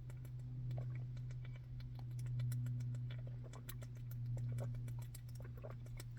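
Scattered small clicks and wet smacks of eating and drinking close to the microphone, over a steady low hum.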